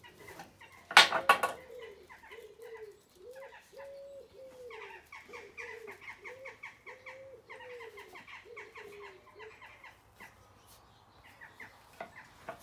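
A small puppy gives a loud yelp about a second in, then makes a long run of short, high-pitched, pulsing play growls, one after another, while tugging at a push broom.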